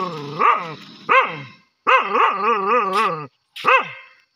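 Dog barking and baying: a run of short barks and one long call with a wavering pitch about two seconds in.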